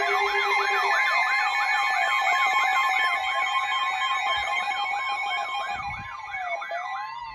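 Electronic siren tone yelping rapidly up and down, about three sweeps a second. Near the end it slows and fades out.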